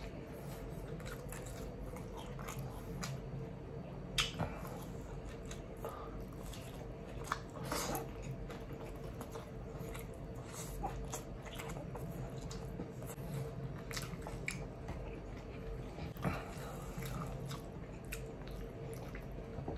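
Close-up mouth sounds of a person eating steak and rice by hand: chewing with wet smacks and sharp lip clicks, loudest about 4, 8 and 16 seconds in, over a faint steady hum.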